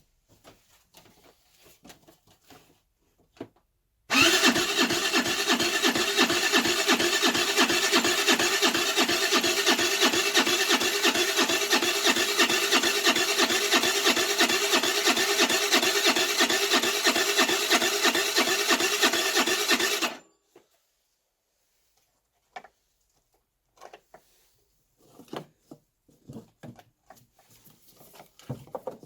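Electric starter cranking the Baotian Tanco's 50cc four-stroke engine for about sixteen seconds, a fast, even pulsing whirr that stops abruptly; the engine turns over but never fires. Faint clicks and knocks before and after.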